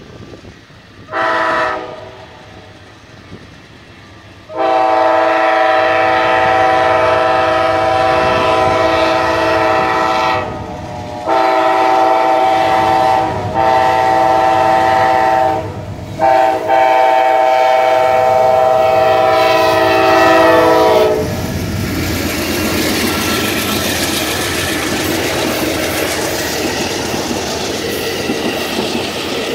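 Amtrak diesel locomotive's horn sounding a chord: a short toot about a second in, then the grade-crossing signal of long, long, short, long blasts. After the horn stops, the bilevel passenger cars pass close by, wheels clicking over the rail joints.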